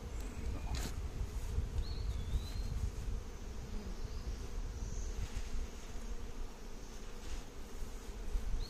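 Honey bees buzzing steadily around an opened hive as frames are being moved, a dense, even hum with a single click a little under a second in.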